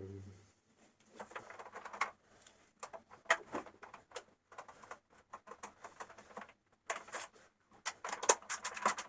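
Parts of a recoil pull-starter being handled: irregular clusters of small clicks, light knocks and scraping, loudest about three seconds in and near the end.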